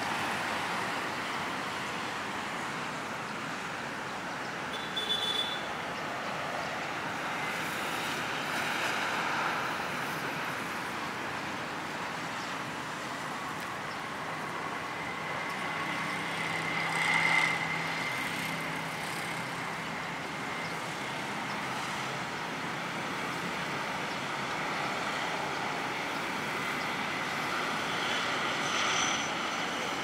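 Steady city street traffic noise from passing motorbikes and cars, with a short high beep about five seconds in. One vehicle passes louder a little past the middle, its motor giving a steady whine.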